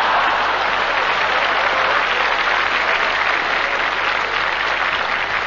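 Live cabaret audience applauding after a punchline: dense clapping that eases off slightly toward the end.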